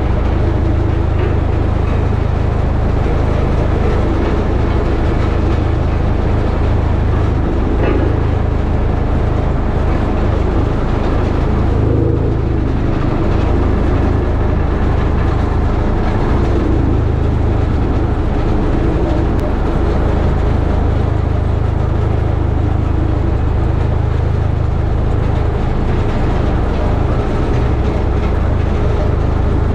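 Small ride-on tandem drum roller's engine running steadily as the roller drives over a gravel base, heard from the operator's seat as a loud, even low hum.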